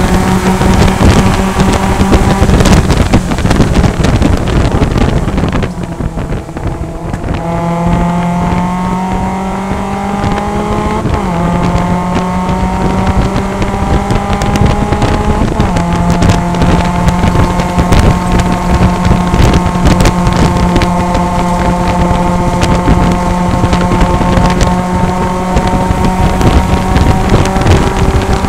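Mazda MX-5 Cup race car's four-cylinder engine heard from inside the cockpit, running at high revs. About six seconds in the note drops as the driver lifts and brakes. It then climbs through the gears with two upshifts, each a sudden fall in pitch, and holds steady near the top of the rev range.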